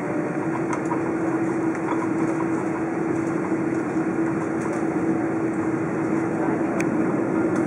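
Steady cabin noise inside an Airbus A330 airliner during taxi: engines and air conditioning running with a steady hum, broken only by a few faint clicks.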